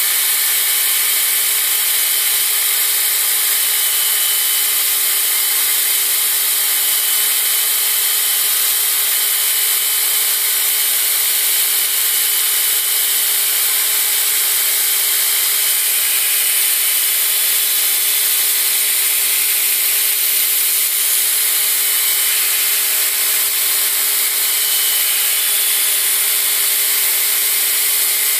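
Belt grinder running steadily: a constant high belt hiss over a steady motor hum, with no work pressed against the belt.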